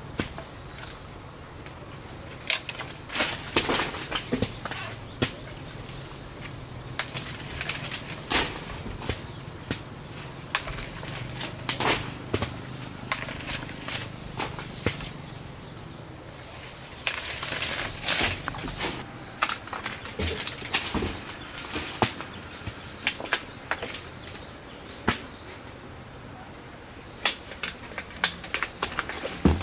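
Steady high-pitched insect chorus, crickets or similar, with irregular clicks, knocks and rustles of hands handling things close by.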